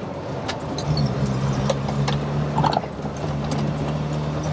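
Triumph Toledo's 1300 four-cylinder engine running steadily under way, heard from inside the cabin over road noise, with small rattles and clicks. The engine note firms up about a second in and then holds steady.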